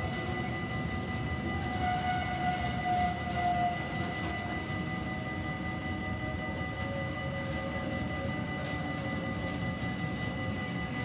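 Freight train of tank wagons rolling past, with a steady rumble of wheels on the rails. A faint steady high tone runs through it, and a brief whine rises above the rumble from about two to four seconds in.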